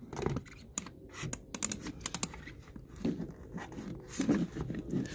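A run of quick small clicks and scratching as a hand pushes a rubber hose into its fitting under a car hood, followed by softer rubbing and handling sounds.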